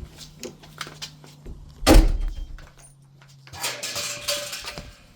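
A door being handled and opened to go out: small clicks and knocks, a heavy thud about two seconds in, then about a second of scraping rustle.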